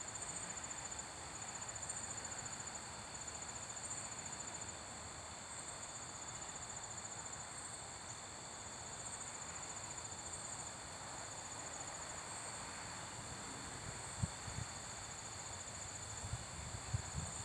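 A chorus of insects, crickets by its sound, trilling steadily in high, rapidly pulsing chirps over a soft background hiss. A few faint low knocks come near the end.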